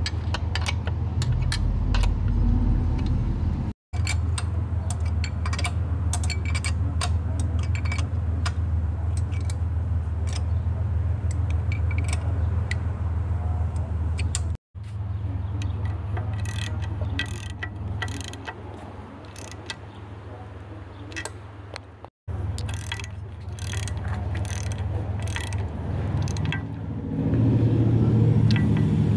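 Ratchet wrench and socket clicking in quick runs as the bolts holding the gearcase to a Mercury 135 outboard are tightened, over a steady low hum. The sound cuts out abruptly three times.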